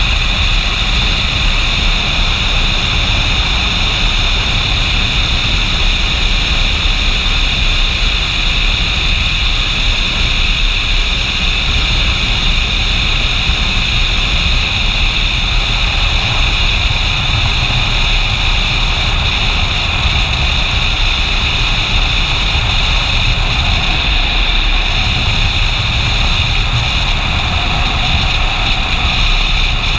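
A motorcycle cruising on the open road: its engine running steadily under a loud, even rush of wind over the microphone.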